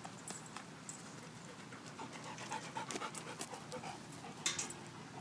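Golden retriever panting close by in short, even breaths, with a brief louder rustle about four and a half seconds in.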